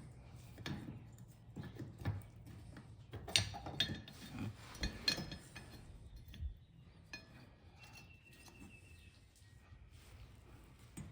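Scattered metal clinks and knocks of tools and axle parts being handled, busiest in the first half, over a low steady hum.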